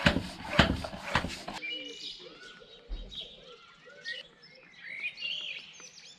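Floor pump inflating a bicycle tyre: a few quick strokes, each with a rush of air. About a second and a half in, the pumping stops and faint bird chirps follow.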